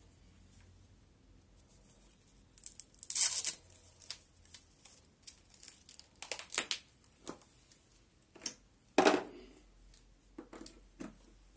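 Irregular rustling and crackling with scattered sharp clicks. The loudest bursts come about three, six and a half, and nine seconds in.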